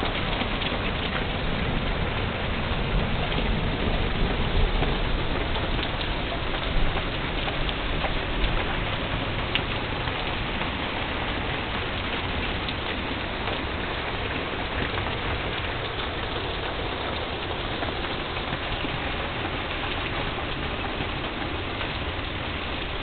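Steady rain falling: a constant hiss of rain on the surroundings, a little heavier in the first several seconds.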